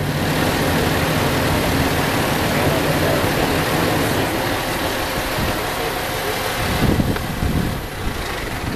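A motor vehicle's engine running close by: a steady rush of noise over a low engine hum, easing off about eight seconds in.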